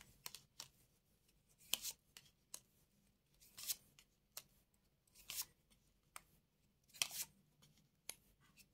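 Playing cards being laid out and flipped onto a table: a string of short, faint, crisp snaps and slides, one every second or so.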